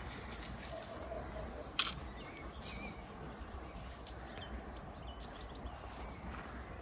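Open-field background noise with a few faint bird chirps and a single sharp click about two seconds in.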